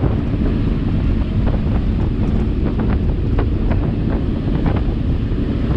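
Wind buffeting the microphone on the open deck of a passenger ferry under way, over the steady low rumble of the boat's engine and the rush of its churning wake, with brief crackles of wind on the microphone.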